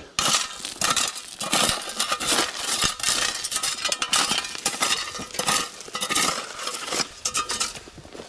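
Footsteps and rustling as someone walks through dry roadside brush onto gravel: irregular crunching and crackling with sharp clinking clicks, several a second.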